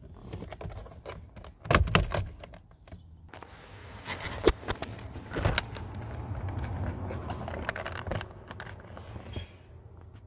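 Plastic trim panels under a car's dashboard being unclipped and pulled off by hand: an irregular run of clicks, knocks, rattles and scrapes, with the loudest knocks about two seconds in.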